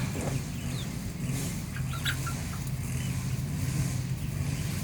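A steady low engine-like drone runs under a few soft, short high-pitched chirps from young chickens, most of them between one and two seconds in.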